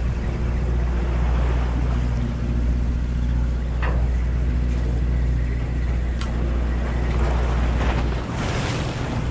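A boat's engine running with a steady low hum, under wind and the wash of choppy sea. A couple of short ticks come about four and six seconds in.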